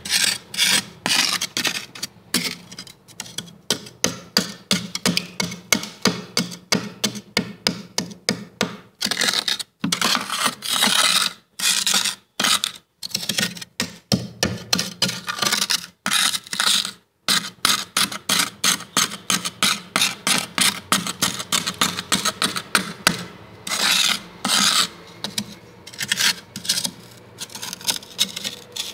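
Thick freezer frost being scraped, in quick repeated rasping strokes of about two to three a second, with a few short pauses.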